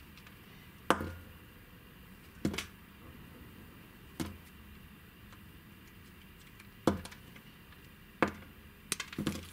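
Snap-off utility knife cutting through a bar of soap: a crisp snap each time the blade breaks through and a chunk comes away, five of them one to two and a half seconds apart, then a quick run of smaller cuts near the end.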